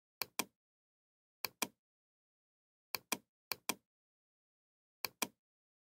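Computer mouse clicking: five short clicks, each a sharp double tick of button press and release, spread irregularly over about five seconds.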